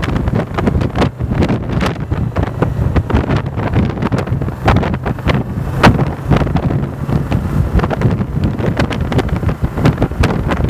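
Wind buffeting the microphone on a Yamaha motorcycle riding steadily at about 55–60 km/h, with the engine's low steady drone underneath.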